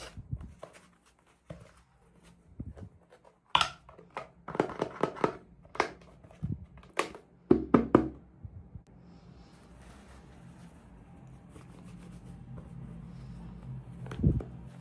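Small plastic packaging and toy pieces being handled and opened: a quick run of clicks, taps and rustles, densest in the first half. After that comes a low steady hum, with one dull thump near the end.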